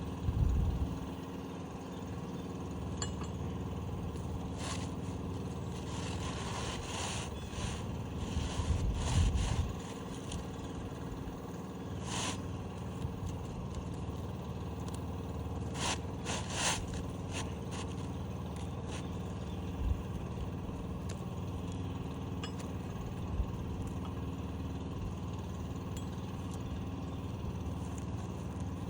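An asphalt shingle being slid back into place on a roof, scraping and rubbing for a few seconds, followed by several sharp knocks. A steady engine hum runs underneath.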